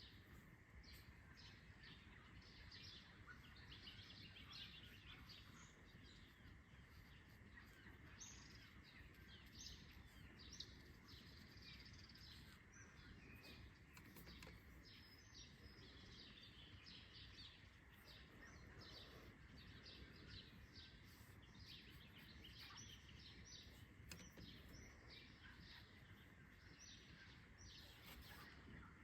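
Faint dawn chorus of many small birds chirping densely and continuously, over a steady high-pitched tone.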